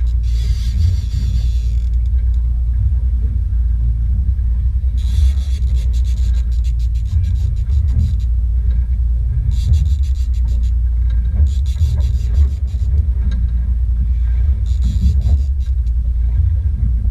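Fishing boat under way: a steady low rumble of engine and motion. A hiss comes and goes in bursts of one to two seconds every few seconds.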